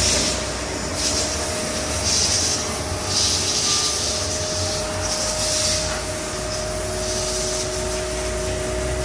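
CNC sliding-head lathe running in a machine shop: a steady mechanical hum carrying a constant pitched tone, with short hissing spurts every one to two seconds, typical of coolant spraying in the working area.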